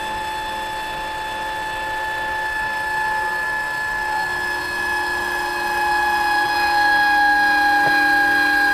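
Linear actuator's small electric motor and gearbox whining steadily as it drives a plywood door down against a plastic jug, growing louder as it presses down under load.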